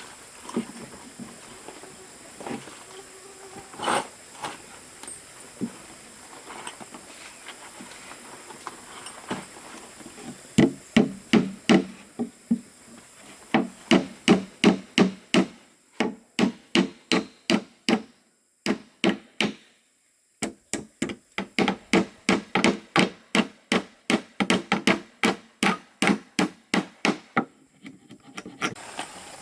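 Hammer striking wood, likely nails being driven into timber: a few scattered knocks, then from about a third of the way in a long run of steady, rapid blows about three a second, broken by short pauses.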